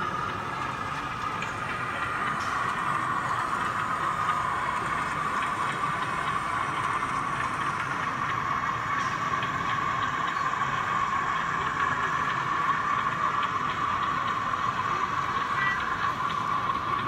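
OO gauge model diesel locomotive running through a station on a layout, with a steady whine over the even background noise of an exhibition hall.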